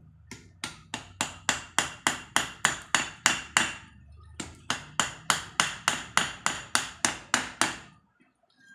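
Steady rhythm of hammer blows on steel, about three or four a second, each with a short metallic ring. There are about two dozen strikes, with a brief pause about halfway.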